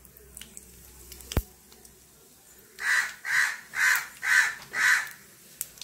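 A crow cawing five times in a quick, even series, about two caws a second, starting about three seconds in. A single sharp knock comes earlier, about a second and a half in.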